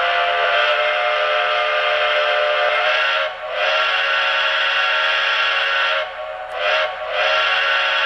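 Quilling steam whistle sound effect from a Lionel Legacy sound system, played through a model Shay locomotive's onboard speaker. It is blown in long blasts with short breaks about three seconds in and twice around six to seven seconds in.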